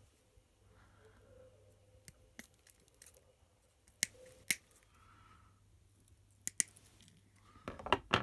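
Flush cutters snipping the ends of thin nichrome coil wires: a series of short sharp clicks, loudest about four seconds in, half a second later, and in a quick cluster near the end.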